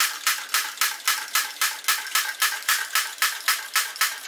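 Wilesco toy drop hammer, belt-driven by a small Stirling engine, clacking in a steady, even rhythm of about four metallic strikes a second.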